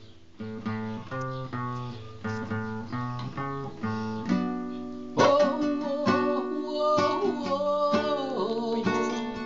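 Acoustic guitar strummed in a steady rhythm. About five seconds in, a man starts singing over the strumming.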